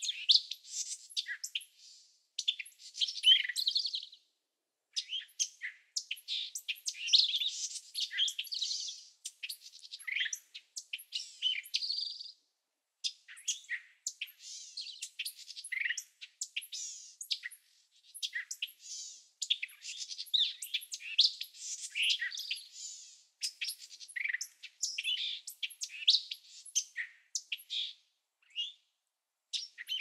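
Many birds chirping and twittering, with dense overlapping high chirps and short whistled notes, broken by a few brief pauses.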